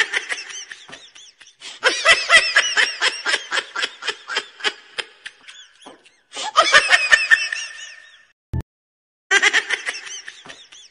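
Hearty laughter in quick repeated bursts, loudest in the first half, breaking off briefly about eight seconds in before starting again.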